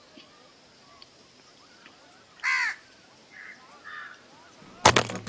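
A crow caws once loudly about halfway through, followed by two fainter calls. Near the end a sudden loud burst of percussion cuts in.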